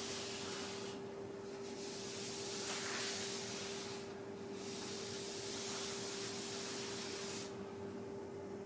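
Charcoal stick rubbing across paper in three long hissing strokes with short pauses between, over a steady hum.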